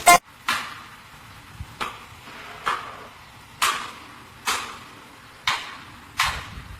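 A series of sharp knocks, about eight at uneven spacing of roughly one a second, each with a short noisy tail.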